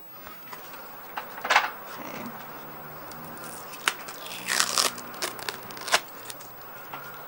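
An SD card's card-and-plastic blister pack being torn and crinkled open by hand: irregular crackles and sharp clicks, busiest about four to five seconds in, with a last sharp click about six seconds in.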